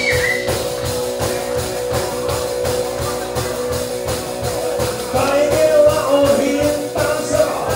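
Live rock and roll band playing: drums keep a steady beat under electric guitar and upright double bass, with a long held note for the first few seconds and singing coming in about five seconds in.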